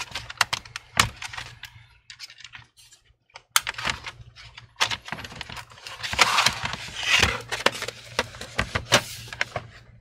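Hands handling and pressing on a laptop's plastic bottom cover: a quick run of sharp plastic clicks and taps at the start, a few single clicks, a rubbing scrape about six seconds in, and more clicks near the end as the laptop is turned over.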